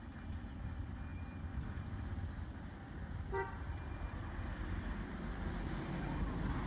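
Steady low outdoor rumble, with a single short pitched toot about three and a half seconds in.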